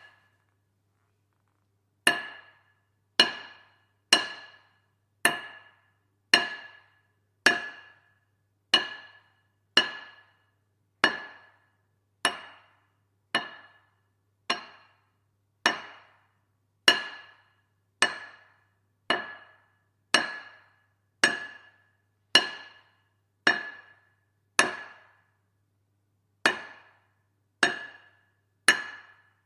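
A hammer striking at a steady pace, about one blow a second, each blow ringing briefly before it dies away. The blows start about two seconds in and pause briefly near the end, over a faint low hum.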